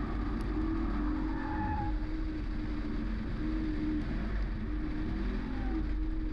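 BMW M440i xDrive Coupé driving at an even pace, its turbocharged inline-six holding a fairly steady note over a constant low rumble of tyre and road noise.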